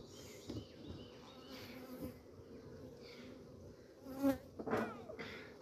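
Honeybees buzzing around their hive, a steady hum, with a louder buzz rising and falling in pitch about four seconds in as bees fly close by.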